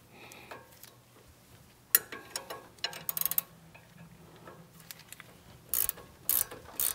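Ratchet wrench clicking as the sway bar end link nut is worked loose: a sharp click about two seconds in, a quick run of clicks around three seconds, and three short ratcheting strokes about half a second apart near the end.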